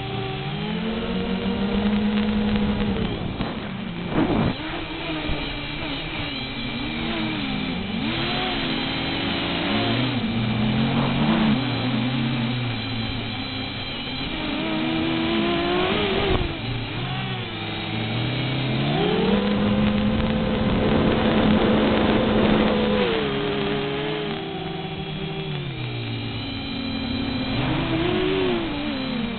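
XK X251 quadcopter's motors and propellers whining in flight, the pitch rising and falling repeatedly with the throttle and held high for a few seconds in the second half.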